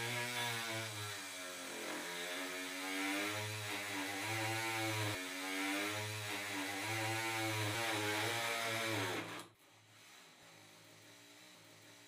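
Surgical oscillating bone saw with a thin blade running as it cuts through a synthetic tibia model, its pitch rising and falling repeatedly. It stops suddenly about nine and a half seconds in, leaving a faint hum.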